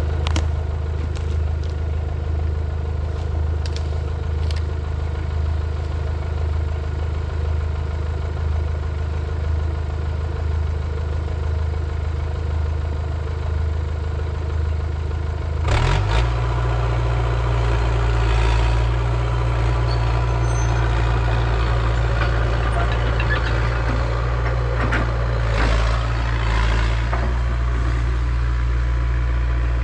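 Hitachi EX100 excavator's diesel engine running steadily. About halfway through it speeds up with a short rise in pitch, then keeps working at higher revs, with noisier stretches on top.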